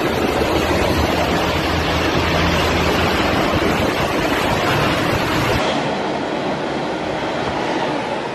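Tornado roaring at close range: a loud, steady rush of wind with a deep rumble underneath. The rumble drops out suddenly about five and a half seconds in, leaving a thinner rush of wind.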